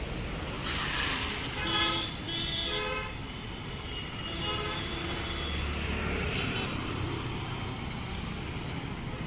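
Street traffic with vehicle horns tooting: two short toots close together about two seconds in, then a longer toot about five seconds in.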